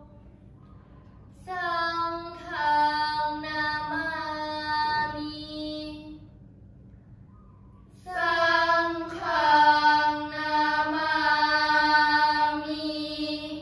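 A group of girls chanting a Buddhist prayer together in unison, in a slow melodic recitation on long held notes. Two phrases, one starting about a second and a half in and the other about eight seconds in, with a short pause between.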